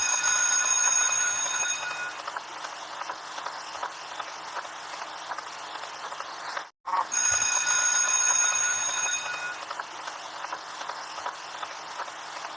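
A train sound effect played twice in a row, each time cut in sharply. It opens with about two seconds of a high, steady, metallic ringing tone, then settles into a rumbling run with scattered clicks.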